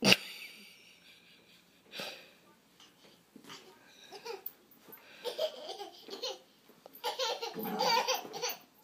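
A person laughing in short, breathy, wheezy bursts, more strongly near the end, after a sharp click at the very start.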